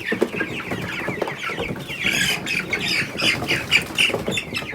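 Cornish Cross broiler chickens calling loudly while being caught and handled: a rapid, overlapping stream of short high-pitched cheeps and squawks.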